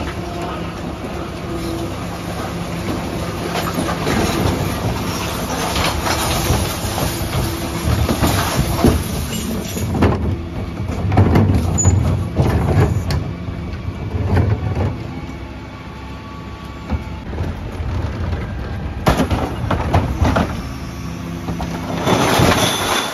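Dennis Elite 6 twin-pack refuse truck running as its Terberg bin lifters raise and tip wheelie bins into the body, with a steady engine and hydraulic drone under repeated knocks and clatter from the bins being emptied, heaviest about halfway through and again near the end.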